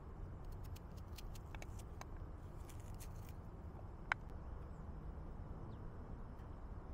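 Scattered light clicks and clinks, thickest around the middle, with one sharper click about four seconds in, over a low steady rumble.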